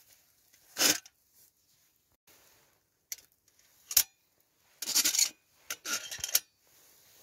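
Aluminium Trangia cook set being handled and fitted together: a few short scrapes and rubs of thin metal parts, with one sharp click about four seconds in.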